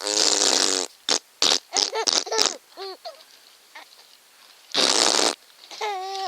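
Two loud blown raspberries (mouth fart noises) made as silly sound effects, one at the very start and a shorter one about five seconds in. Between and after them come a baby's short, high-pitched vocal sounds.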